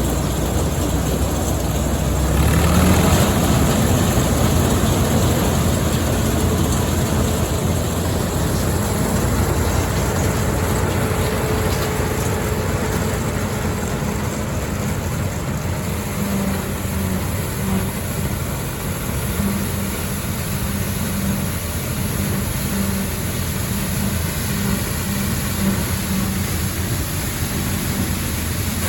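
Allis-Chalmers WD45 tractor engine and pull-type All-Crop 72 combine running steadily while harvesting wheat, with the engine pitch rising about two seconds in and then holding.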